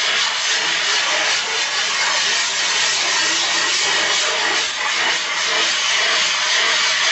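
Steady gritty rasping of a glass muller being worked in circles over a sheet of plate glass through a wet slurry of silicon carbide grit. The abrasive is grinding the glass surface rough so it can be used for grinding pigments.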